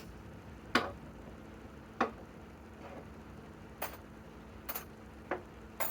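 About six separate sharp clicks and knocks, irregularly spaced, from hard objects being handled: the loose lag screws and timber being moved between drivings. The impact wrench is not running.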